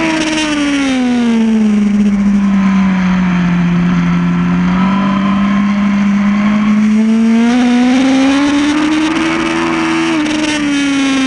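2008 Yamaha R1's inline-four engine heard from on board while lapping a circuit. Its revs fall over the first two seconds, hold lower for a few seconds, then climb steadily, and drop off again near the end.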